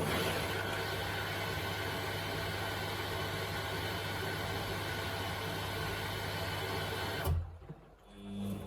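Samsung washing machine filling: water rushing in through the open inlet valve, with a steady mains hum, cuts off suddenly about seven seconds in. A steady low machine hum starts just before the end.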